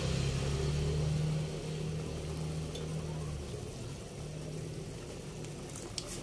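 A low, steady motor hum that weakens about a second and a half in and fades out after about three and a half seconds, with a faint hiss underneath and a single light click near the end.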